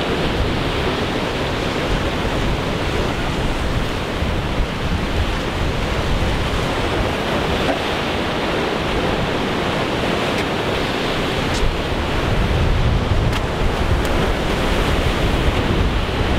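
Surf breaking against the pier pilings, mixed with wind buffeting the microphone: a steady, unbroken rushing noise.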